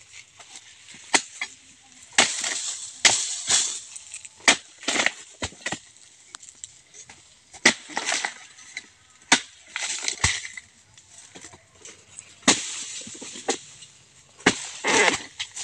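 Dodos (long-poled harvesting chisel) cutting into oil palm frond bases: about fifteen irregular sharp chopping strikes, some followed by a longer rustling tail.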